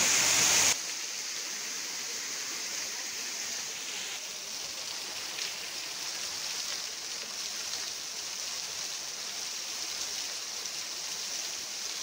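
Steady rushing hiss of a stream running over rocks, louder for the first moment and then dropping suddenly to a softer, even level.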